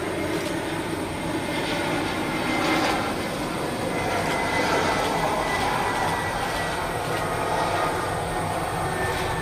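Airbus A320 jet engines on final approach, running with a steady rushing noise and a faint high whine that swells slightly as the aircraft comes nearer.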